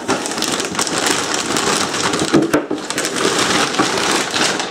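Clear plastic packaging bag crinkling and rustling as it is handled and moved close to the microphone, a dense run of crackles.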